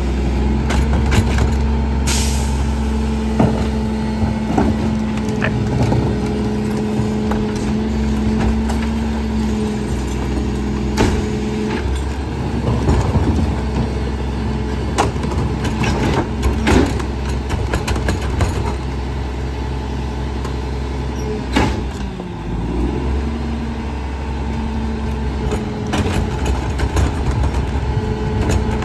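Rear-loading garbage truck's engine and hydraulics running steadily while trash carts are tipped and knocked against the hopper, with frequent bangs and clatters of refuse. There is a short hiss of air about two seconds in, and the engine's pitch shifts a little past ten seconds and again a little past twenty.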